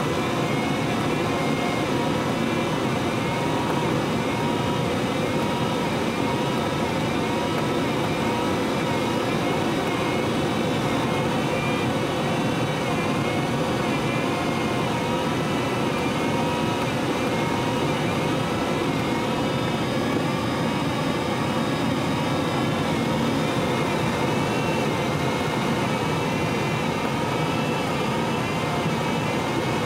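Steady rush of air past the canopy of a Schleicher ASW-15b glider in flight, heard from inside the cockpit, with no engine. A faint tone wavers slowly up and down in pitch underneath.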